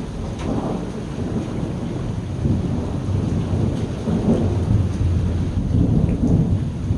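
Thunder rumbling low under steady rain, the rumble swelling a little before halfway and staying strong almost to the end.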